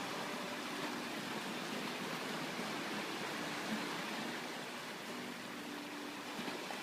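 Steady rushing wash of sea surf, with faint distant voices now and then.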